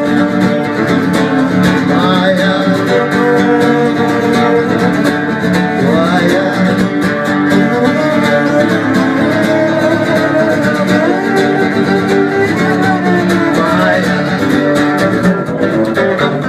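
Acoustic guitar music: an instrumental passage with no sung words.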